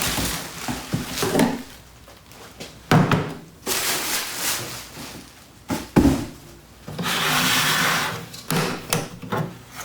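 Handling and unpacking of a plastic tool case and its packing: a few sharp clunks, about 3 and 6 seconds in, scattered knocking and rubbing, and a steady rustle for over a second near the end.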